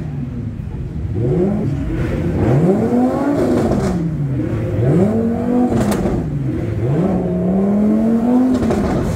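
Lamborghini Huracán's V10 engine revved three times while standing still, each rev climbing and then dropping back, the last one held high near the end before it falls away.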